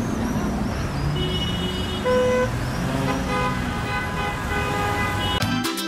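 City street traffic noise with several short car-horn toots, the loudest about two seconds in. Music cuts in abruptly just before the end.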